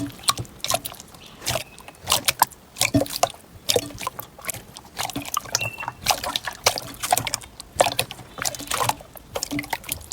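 Slime being squeezed and kneaded by hand: a dense run of irregular clicks and pops coming in clusters.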